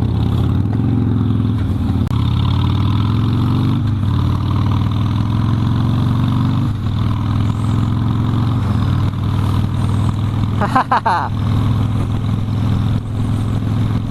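Harley-Davidson Sportster V-twin engine running under way, its pitch rising and falling several times with the throttle.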